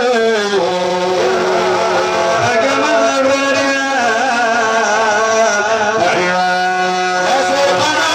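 A man's voice chanting a religious song through a microphone and loudspeakers, in long drawn-out notes that waver and slide from pitch to pitch.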